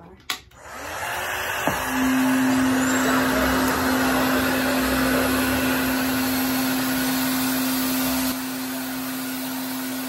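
A click, then a RevAir reverse-air dryer starts up and runs: a steady rushing of air with a constant hum, sucking a section of hair into its wand. It builds over the first two seconds and drops to a somewhat quieter level about eight seconds in.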